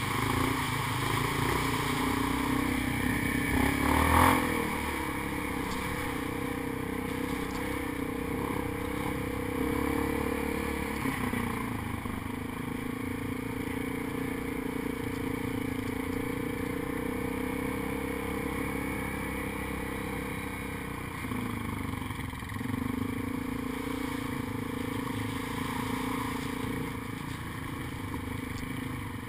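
ATV engine running at a steady low trail speed, with the rattle and scrape of the machine over rough dirt, and one loud knock about four seconds in.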